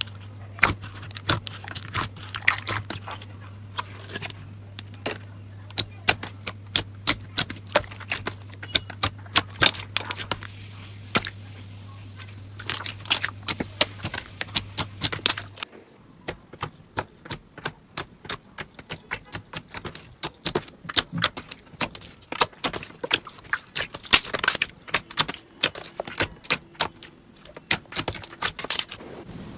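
Slime being squeezed and poked, making a rapid, irregular run of sharp crackling pops and clicks. A low steady hum lies under the first half and cuts off suddenly about halfway, where the clicking goes on in a new clip.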